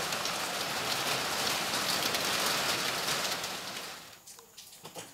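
Heavy rain falling steadily, which cuts out about four seconds in, leaving a few faint clicks and scrapes of a rice paddle in a rice cooker's pot.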